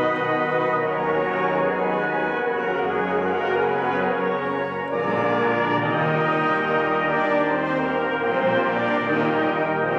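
Concert wind band playing held chords, clarinets, flutes, saxophones and brass together, moving to a new chord about halfway through.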